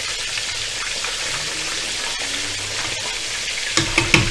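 Chicken pieces deep-frying in hot oil in a wok, a steady sizzling hiss. Near the end, a few sharp knocks.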